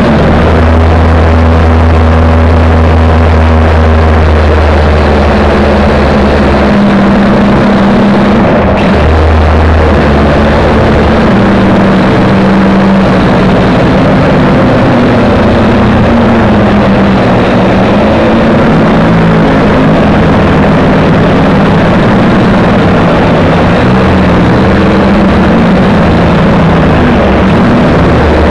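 Quadcopter's electric motors and propellers whining loudly, heard close up from the camera on the craft, the pitch drifting up and down as the throttle changes. A heavy low rumble runs under it and drops out briefly about seven seconds in.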